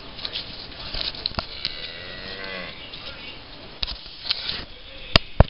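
A dairy cow moos once, briefly, about two seconds in, among scattered clicks and scuffs of hooves on concrete. Two sharp knocks come near the end.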